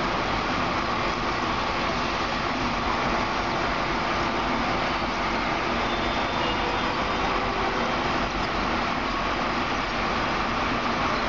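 Automatic gantry bus wash machine running on a city bus: rotating brushes scrubbing the bus body with water, making a steady, unbroken mechanical noise.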